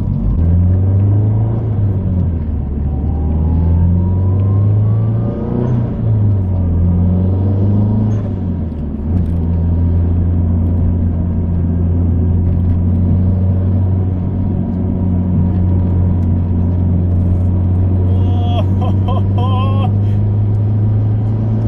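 Mazdaspeed 3's turbocharged 2.3-litre four-cylinder engine and road rumble while driving. The engine note rises and falls over the first nine seconds or so, then holds steady at a cruise.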